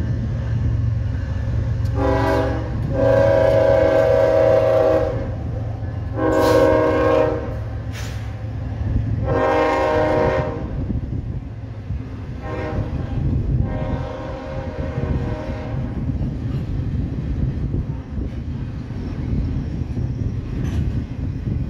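Diesel locomotive air horn sounding a series of long and short chord blasts, the later ones weaker, over the steady rumble and rolling noise of a passing double-stack intermodal freight train.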